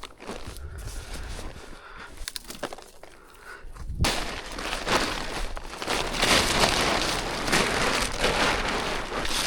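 A few scattered clicks, then about four seconds in loud, continuous rustling and crackling sets in, like gear being handled and packed up at camp.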